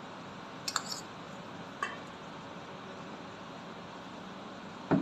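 Metal spoon clinking against a small ceramic bowl as chopped green chillies are scraped out into a steel mixing bowl. There are a few light clicks, the loudest near the end, over a steady background hiss.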